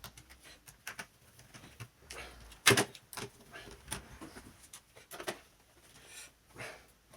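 Small clicks and knocks of plastic and metal parts of a Lenovo V110 laptop being handled while it is worked on, with one louder knock a little over a third of the way in.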